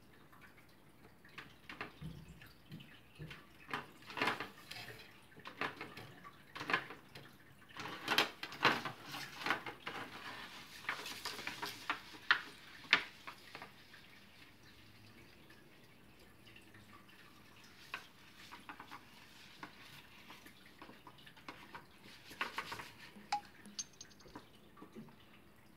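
Paintbrush dabbing and scraping in a thin aluminium foil tray of paint: a run of light taps, crinkles and scrapes, busy for the first half, stopping for several seconds, then a few more near the end.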